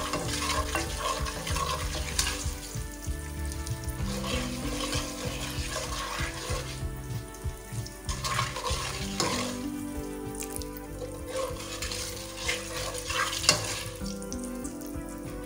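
Ground and whole spices (chilli, turmeric, cumin, ajwain, nigella) sizzling in oil in a pot as they are fried. A spatula stirs and scrapes against the pot now and then, with a few sharper scrapes. Soft background music plays underneath.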